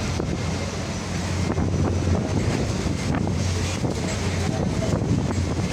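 Steady low drone of a ship's engines, with wind buffeting the microphone over it.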